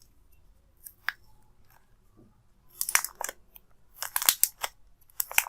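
Plastic wrapping crinkling and crackling in irregular bursts as it is handled and peeled off a new phone.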